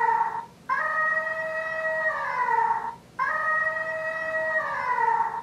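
Electronic voice chip of a giant elephant PEZ dispenser playing a synthesized sound: a held chord-like tone that slides down in pitch at its end, repeated about every two and a half seconds with short breaks between.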